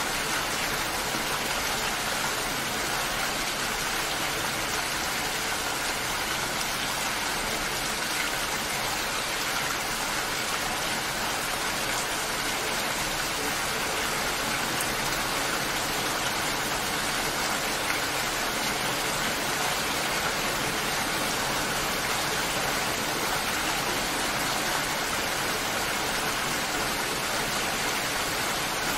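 Steady rain, an even hiss that never lets up.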